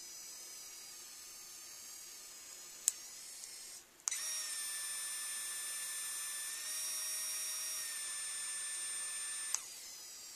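3Doodler 3D printing pen's motor whining steadily as it extrudes plastic filament. It cuts out briefly about four seconds in and comes back louder, then drops back to a softer whine near the end. There is one sharp click just before three seconds in.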